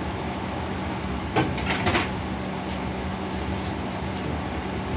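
Commercial kitchen exhaust hood running with a steady drone and low hum, with a brief clatter of clicks about a second and a half in.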